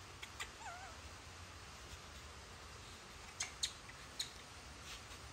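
Baby macaque giving one short, wavering squeak about a second in, then a few light, sharp taps a few seconds later as it climbs down the bench's metal frame.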